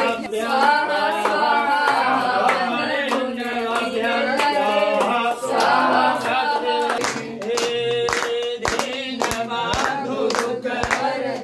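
A group of voices singing a Hindu devotional hymn in unison. About seven seconds in, steady hand clapping joins in time at about three claps a second.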